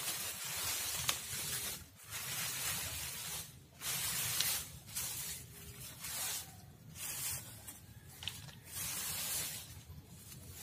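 Dry fallen bamboo leaves rustling as hands brush and pull them aside, in a run of bursts about a second long each with a few sharp crackles.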